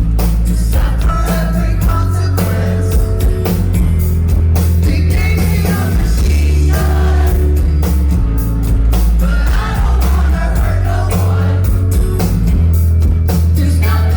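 A live rock band playing loud: distorted electric guitars, bass and drums under a sung lead vocal, with a heavy booming low end.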